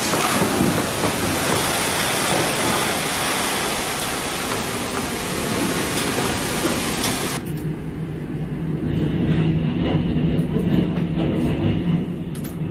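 Storm wind and heavy rain making a loud, steady rush. About seven seconds in it cuts off abruptly to a duller, lower rumble with a steady hum underneath.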